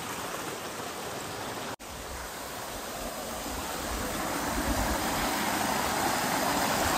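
Waterfall rushing, a steady noise of falling water that grows louder over the last few seconds, with a brief break in the sound about two seconds in.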